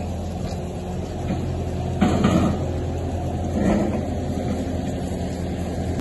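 A vehicle's diesel engine idling steadily with a low, even hum. There is a brief louder clatter about two seconds in and a smaller one near the four-second mark.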